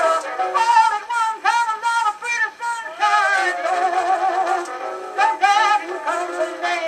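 1920s jazz record playing on a Victrola Radiola 7-11 cabinet phonograph: singing with heavy vibrato over a jazz band. The sound is thin, with no deep bass.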